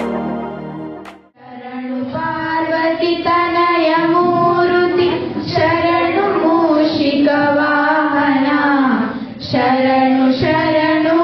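A small group of schoolgirls singing together into one microphone, in a slow melody of long held notes with a short break near the end. It opens with the tail of instrumental music that fades out about a second in.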